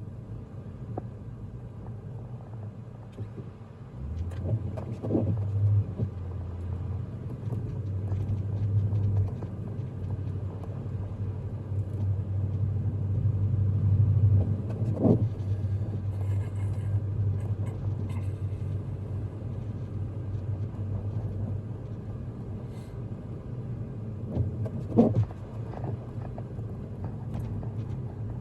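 Car road noise heard from inside the cabin while driving: a steady low rumble that grows louder through the middle. Three brief rising squeaks come about ten seconds apart.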